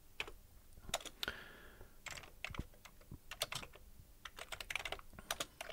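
Computer keyboard being typed on: irregular keystroke clicks in short runs of several keys at a time.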